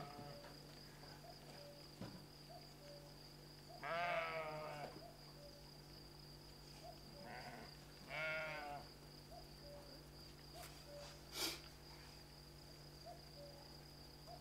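Sheep bleating: two quavering bleats about four seconds apart and a short faint one just before the second, with a single sharp click later on.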